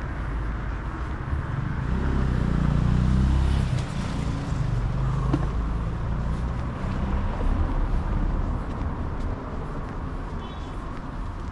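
City street traffic: a steady low rumble of cars, with one vehicle passing close and swelling loudest about two to three seconds in, then fading back into the general traffic.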